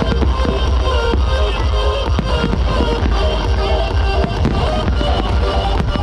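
Music playing loudly, with aerial fireworks bursting and crackling over it several times.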